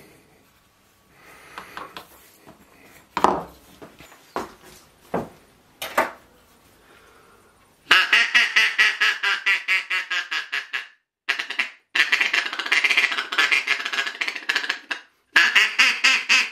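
Handmade Queen Ebony duck call being blown in rapid strings of short quacks, about six a second, in three runs with brief breaks between them. A few knocks and clicks come before the calling starts.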